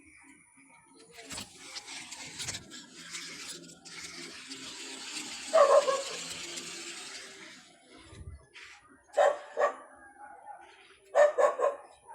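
A dog barking in short bursts: one bark about halfway through, two more a few seconds later, then a quick run of barks near the end.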